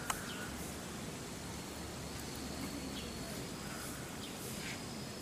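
Steady outdoor background hiss with faint, short, high chirps repeating through it, and one sharp click just after the start.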